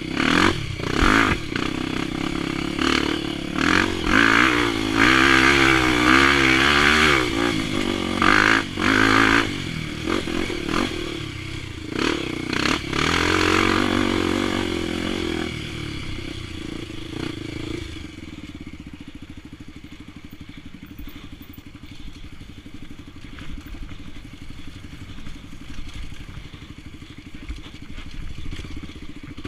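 Single-cylinder four-stroke engine of a Honda XR 250 Tornado trail bike, bored to 280cc and running a ProTork Powercore 3 exhaust. It revs up and down repeatedly through the first half, then drops to a quieter, steady low-speed running for the last ten seconds or so.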